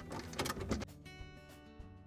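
Quarter-inch nut driver working the ice maker's hex-head mounting screws, giving a few clicks and scrapes in the first second. After that, soft background music with held tones.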